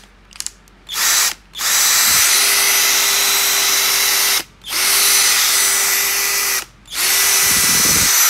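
24V cordless drill running in trigger bursts with a steady whine: two short spins, then three longer runs of about two to three seconds each with brief pauses between them.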